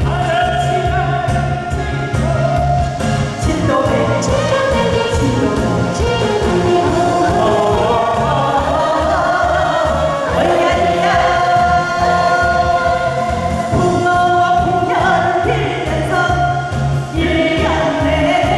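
A man and a woman singing a Korean trot song as a duet, over backing music with a steady bass beat.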